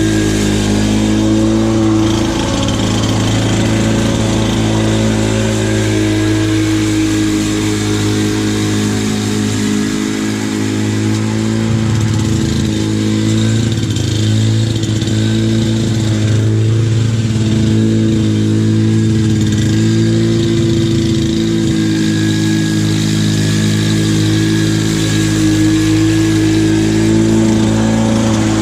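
Lawn-Boy 10323 walk-behind mower's two-stroke Duraforce engine running steadily under load while cutting thick St. Augustine grass, its pitch dipping slightly now and then.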